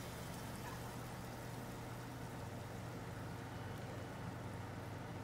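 A steady low hum with a faint even hiss above it, unchanging throughout.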